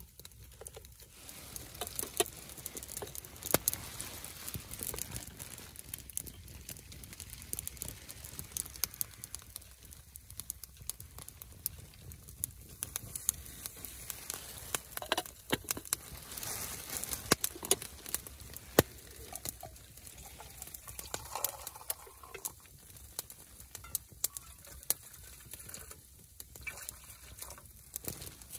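Wood fire in a small titanium firebox stove crackling, with irregular sharp pops and ticks scattered throughout, among some light rustling and crinkling.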